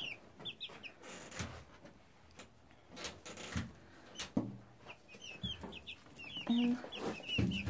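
Baby chicks peeping: clusters of quick, high cheeps at the start and again through the second half, with scattered knocks and rustles in between.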